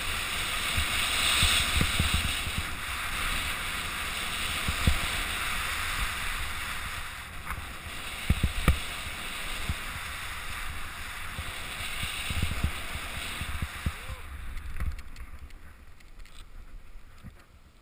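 Snow hissing and scraping under edges carving down a groomed ski run, with wind buffeting the microphone and occasional low thumps. The hiss thins out over the last few seconds as the ride slows.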